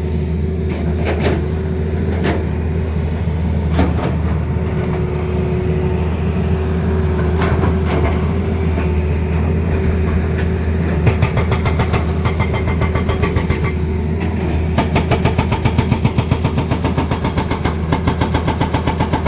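Tata Hitachi excavator's diesel engine running steadily with a held whine, and a few sharp knocks in the first half. Near the end the sound takes on a rapid, even pulsing.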